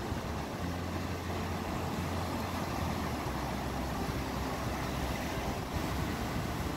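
Atlantic Ocean surf washing steadily, with wind rumbling on the microphone.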